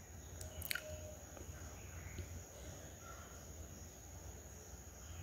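Faint simmering of a thick masala in an open pan, with a few small pops about a second in, over a low steady hum.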